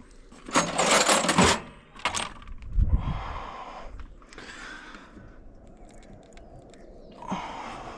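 Metal tools and parts clattering and scraping while a component is being worked loose in a car's engine bay: a second-long burst of rattling about half a second in, a sharp clank near two seconds, a dull thump near three seconds, then quieter handling noises.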